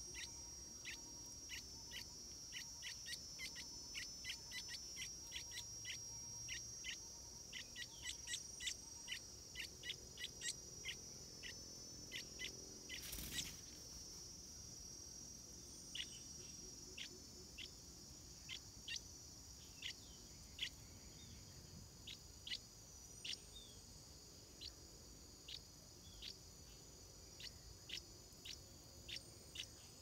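Stripe-throated bulbul chicks giving short, high begging chirps, several a second at first, then thinning to about one a second after the halfway point. A steady high insect drone runs underneath, and a single brief knock sounds about thirteen seconds in.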